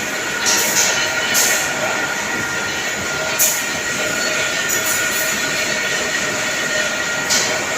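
Machine tool cutting metal on a clutch housing: a steady whine with a few fixed high tones, broken by a few short hissing bursts.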